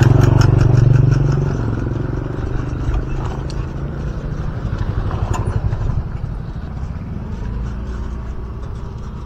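A motorcycle passes close by, loudest in the first second or so, its engine note falling in pitch as it goes away; a steady low rumble carries on after it.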